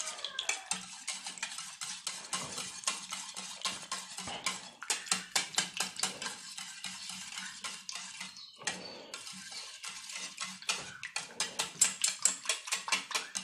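Wire balloon whisk beating a liquid egg-and-milk custard mixture in a metal bowl, its wires clicking rapidly against the bowl's sides, with a brief pause about nine seconds in.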